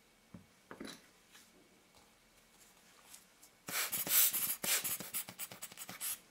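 Handling noise at the workbench: a few light clicks, then from a little past the middle about two and a half seconds of rapid scratchy rustling and scraping.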